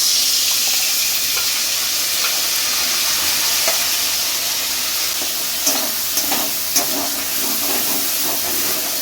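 Ground spice paste of poppy seed and ginger sizzling steadily in hot oil in a kadai, with scattered clicks and scrapes of stirring in the pan from about the middle on.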